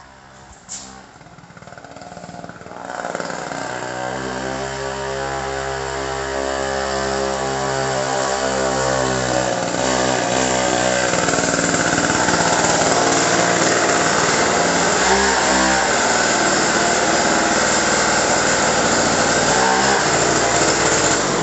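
Two-stroke engine of an old McCulloch chainsaw driving a home-built trike. It runs at steady low revs, then revs up about halfway through and holds a loud, steady high-rev run.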